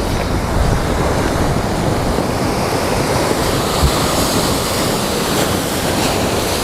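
Ocean surf breaking steadily, with wind rumbling on the microphone.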